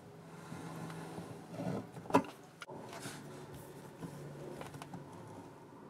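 Water pump pliers gripping and tightening the metal threaded retaining ring over a new mixer-tap cartridge: faint scraping and small clicks, with one sharper click about two seconds in, over a low steady hum.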